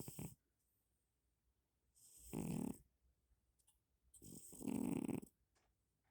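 A cat snoring: the end of one snore at the start, then two more about two seconds apart, each swelling up from a quieter start.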